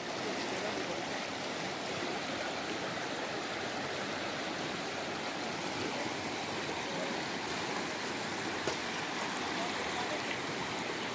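Steady rush of the Ganges river's flowing water, with one brief click about nine seconds in.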